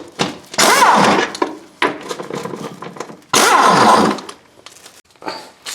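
Power impact wrench running in short bursts, two loud bursts of about half a second each with its pitch sweeping, to break loose the shock-mount nuts.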